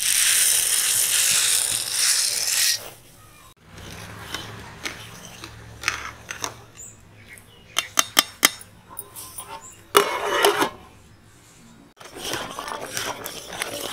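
Cooking over a fire: a loud hissing sizzle from the pot for the first few seconds, then after a cut a series of sharp metal clinks and taps of a spoon against a metal cooking pot while the sago is cooked.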